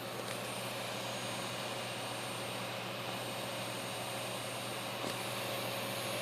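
Seasonic 1050 W PC power supply running: a steady rushing fan noise with a thin, high steady whine over it, the annoying noise the unit makes.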